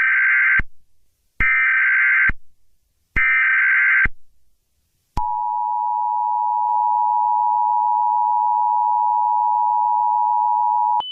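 Emergency Alert System SAME header: three identical bursts of warbling digital data tones, each just under a second long. These are followed by the EAS two-tone attention signal, held steady for about six seconds, which marks the start of an emergency broadcast.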